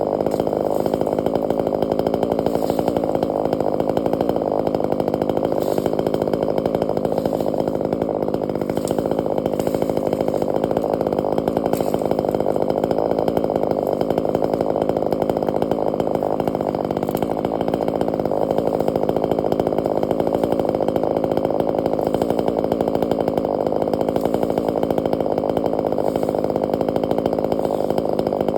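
Chainsaw engine running steadily at a constant speed, with no break or change in pitch.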